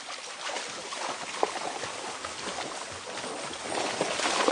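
Running river water: a steady rushing hiss that grows louder near the end.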